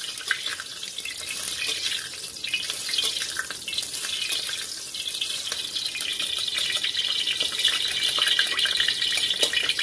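Food sizzling in hot oil in a pan: a steady high hiss with small crackles, louder in the last few seconds.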